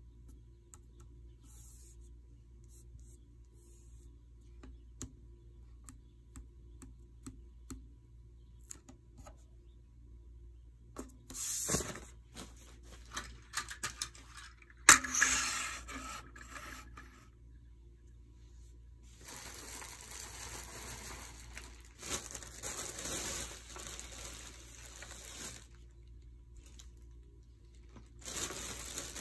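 Paper being handled: light clicks for the first ten seconds or so, then rustling and crinkling with a sharp knock about halfway through, and more rustling in the second half and near the end.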